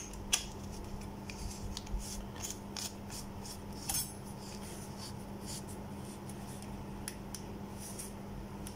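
Faint handling sounds of a metal handheld torch being screwed together: scattered small clicks and scrapes of the tube, caps and threads, over a low steady hum.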